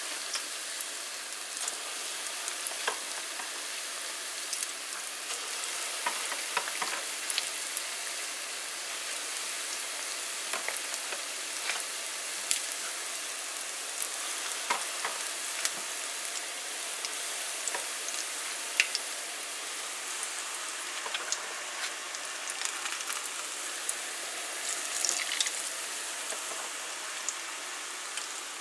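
Vegetable pakoras (battered fritters) deep-frying in a pot of hot oil: a steady sizzle with frequent small pops and crackles.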